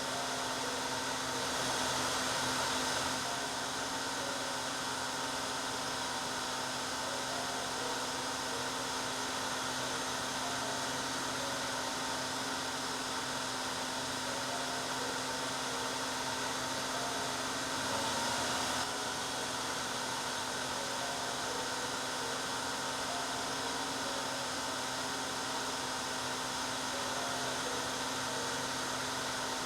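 Hair dryer running steadily: an even rush of blown air over a steady motor hum. It swells slightly louder for about a second twice, about two seconds in and again about eighteen seconds in.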